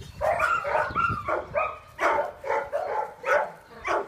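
Dogs barking at play: a quick run of short, sharp barks, about two a second, starting abruptly just after the start.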